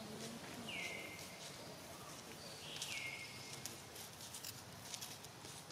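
Light scattered clicks and rustles from baby macaques handling a thin stick on paving stones and dry leaves. Twice, a high call slides down and levels off, about a second in and again about three seconds in.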